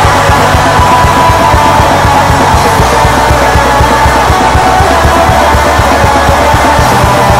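Black metal song from a demo recording: loud, dense distorted guitars over fast, driving drums, without a break.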